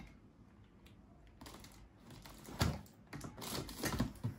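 Rummaging among items on a wooden cupboard shelf: irregular small knocks and clatters as things are shifted about, in a few clusters, with the loudest knock about halfway through and a busy run near the end.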